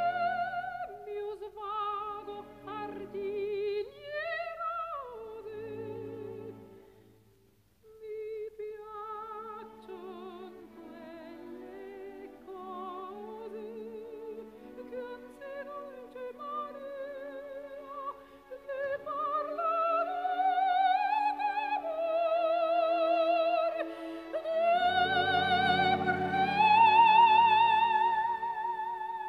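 Slow, meditative music carried by a wordless, opera-like vocal melody holding long notes with wide vibrato. It fades almost away about seven seconds in, then builds and swells louder with a low accompaniment near the end.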